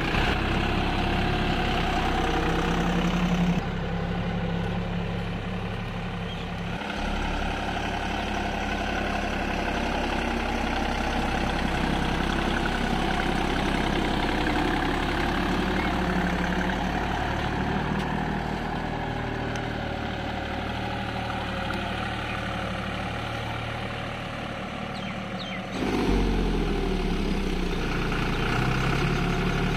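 Deutz-Fahr 50 tractor's diesel engine running steadily as it pulls a laser land leveller through loose soil. The engine note changes abruptly twice, and near the end its pitch drops and then climbs back up.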